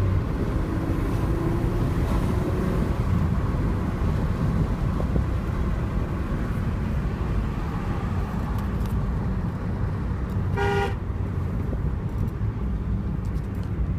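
Alfa Romeo GTV's turbocharged V6 running with a steady low rumble. A short car-horn toot sounds about ten seconds in.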